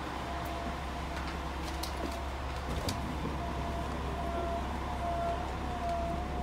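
Steady low hum inside a stationary diesel railcar with its engine idling. A thin wavering tone rises over it from about halfway through, with a few faint clicks.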